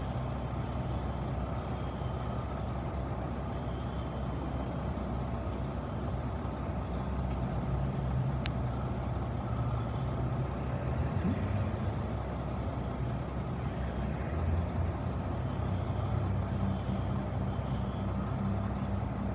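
Large truck engine idling steadily: a low, even hum that grows a little louder in the second half.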